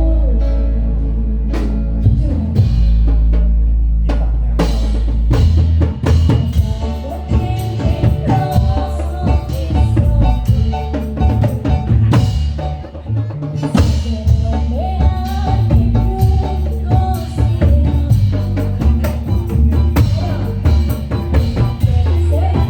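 Musik patrol ensemble playing live: heavy drums and deep bass under a melody line. Long held bass notes open the passage, and a steady percussion beat takes over after about five seconds.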